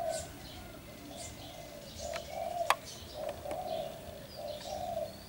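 A dove cooing over and over in short, steady notes, with small birds chirping faintly. A sharp click comes about halfway through and is the loudest sound.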